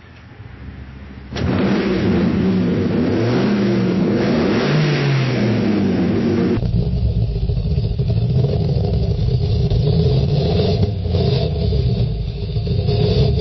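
A car engine revving, its pitch climbing and dropping back twice. About halfway through it cuts abruptly to a different car engine running steadily at a lower pitch, with a few short blips of throttle.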